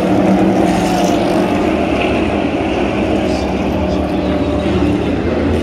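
NASCAR Cup Series stock cars' V8 engines held at an even pitch as the cars roll down pit road at pit-road speed, a loud, steady drone that neither rises nor falls.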